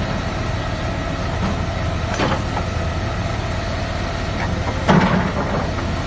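Caterpillar hydraulic excavator's diesel engine running steadily as the machine digs through debris, with two knocks about two and five seconds in, the second the loudest.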